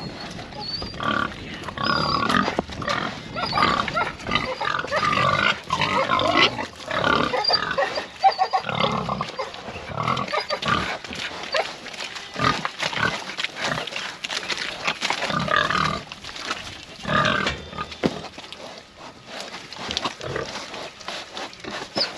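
Gloucestershire Old Spot pigs calling over food in a continual, irregular jumble of short calls, with many short sharp clicks mixed in.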